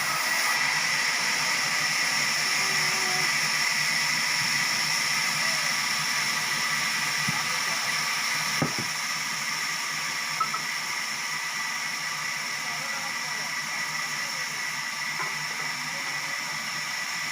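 Sawmill machinery running steadily: a constant hiss with a steady high whine, and one sharp knock about halfway through.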